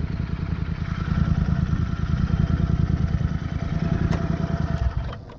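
Motorcycle engine idling with a steady low rumble, then stopping about five seconds in.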